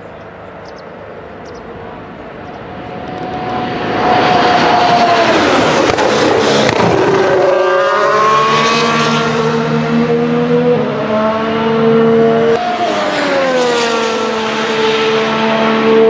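Red Bull Formula One racing car engine at speed. It grows from a quieter note to full volume about four seconds in, then holds a high steady pitch that shifts now and then, with a falling pitch about twelve to thirteen seconds in.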